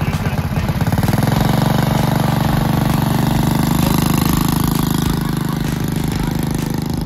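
A vehicle engine running steadily, with a fast, even pulsing note.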